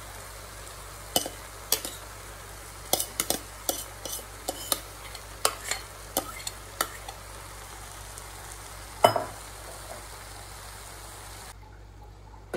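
White plastic rice spoon scraping and tapping against a glass bowl and a non-stick pot as cooked rice is scooped out and spread, in irregular short clicks with one louder knock about nine seconds in. A steady hiss lies underneath and stops near the end.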